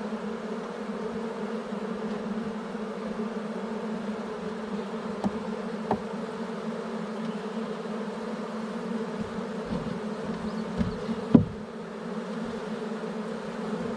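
Dense, steady buzzing of a honeybee swarm at the hive, many bees fanning. A few faint clicks and one sharper knock about eleven seconds in.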